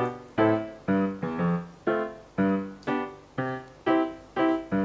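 Background piano music: notes and chords struck about twice a second in an even rhythm, each fading before the next.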